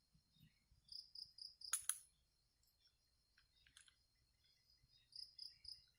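Crickets chirping faintly in short runs of three or four quick pulses over a steady high insect drone. Two sharp clicks come just before the two-second mark.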